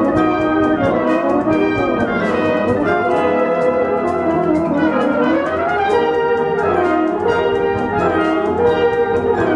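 Brass band playing a fast, busy passage with two euphonium soloists; in the middle, a run sweeps down and climbs straight back up.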